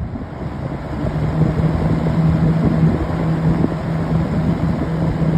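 Kmart 20-inch box fan, about 50 years old, running on high speed: a loud steady rush of air with a low motor hum. It comes up to speed over the first second or so, then holds steady.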